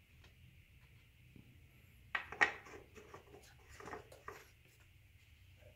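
Light plastic handling sounds of an engine oil funnel and filler cap: a short cluster of clicks and scrapes starting about two seconds in, loudest at first, as the cap is set into the oil filler neck and twisted shut.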